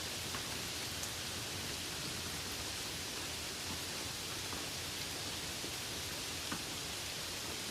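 Light rain falling steadily on a meadow: an even hiss with faint single drops ticking now and then, one a little sharper about six and a half seconds in.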